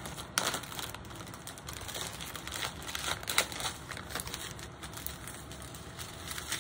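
Small plastic bags of diamond painting drills crinkling and rustling as they are picked up and handled, with irregular clicks and a few sharper crinkles.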